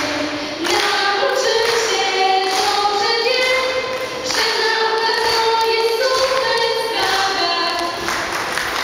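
Two girls singing a duet into handheld microphones, amplified, in a series of long held notes that change pitch step by step.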